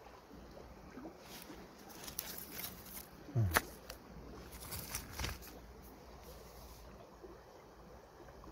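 Faint outdoor background with a few scattered soft scuffs and crackles of footsteps on stony ground among dry grass, and a short low grunt from a man's voice about three and a half seconds in.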